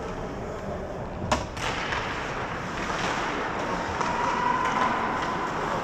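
Ice hockey rink ambience: a steady hiss of skates and arena noise, with one sharp crack about a second in, like a stick or puck striking.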